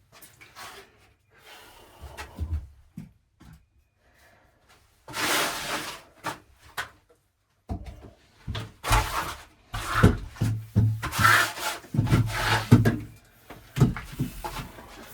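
Irregular rubbing and scraping handling noises with short knocks, in bursts: a pause after the first burst, then a longer run of scraping and knocking.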